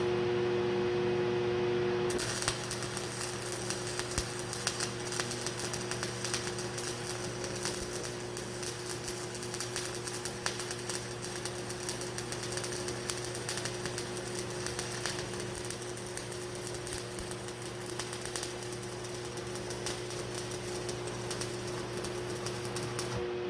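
Electric arc welding a bead on the loader's steel self-leveling arm tube: a dense, rapid crackle that starts about two seconds in and stops just before the end, over a steady hum.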